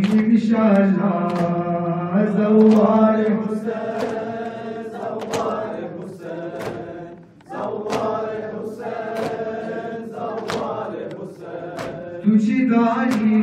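A noha, a Shia lament, chanted by men's voices with rhythmic chest-beating (matam): sharp hand slaps on the chest land in a steady beat about one and a half times a second under the chant.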